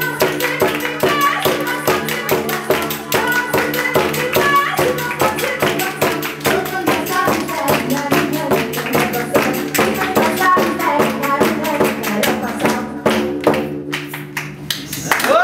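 A woman singing a Tatar folk song live, over a fast, steady beat of audience hand claps and a shaken tambourine, with a low drone held underneath. The clapping thins out near the end.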